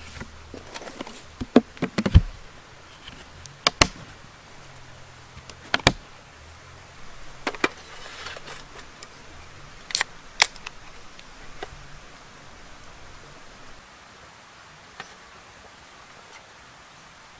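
Objects being handled: irregular sharp clicks and clinks, some in quick pairs, with light rustling between them, thinning out near the end.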